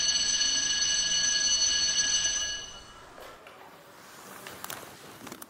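Landline telephone ringing, a steady high-pitched electronic ring that stops about three seconds in, followed by a few faint clicks from the handset being handled.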